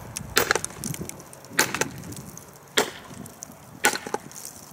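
The steel extended tang of a TOPS Bushcrafter Kukuri 7 knife hammering a chunk of cinder block set on a wooden stump: four sharp strikes about a second apart, each with a brief ring.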